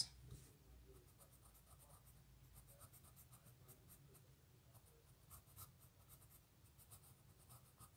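Faint scratching of a pencil drawing on sketchbook paper, in short light strokes.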